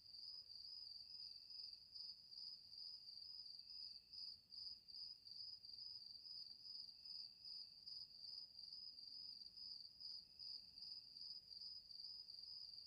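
Faint, steady high-pitched trill of night insects, with a fainter lower note that comes back about every three seconds.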